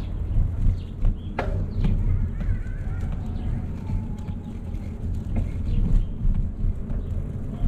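Ride noise from a moving bicycle: a steady low rumble of wind and road noise on the microphone, with occasional light clicks and a few short chirps or squeaks.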